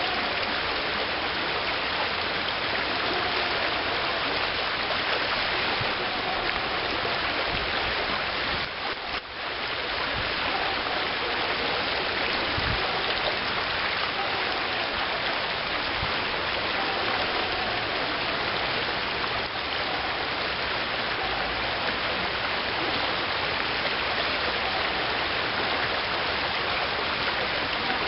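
Shallow river riffle rushing steadily over gravel, with a brief dip about nine seconds in.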